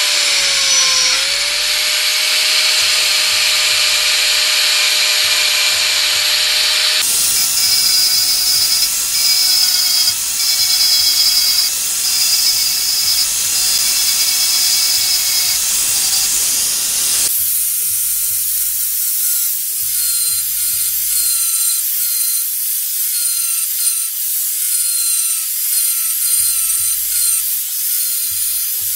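Angle grinder running, its disc grinding down a battery-holder housing: a loud, steady high-pitched whine that changes abruptly twice, about 7 and 17 seconds in.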